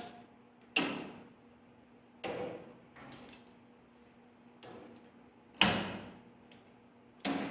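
Vise grips (locking pliers) being set and snapped shut to clamp a sheet-metal patch into a tractor hood: a series of sharp metal clacks, four loud ones spread a second or more apart with two fainter ones between, the loudest a little past halfway.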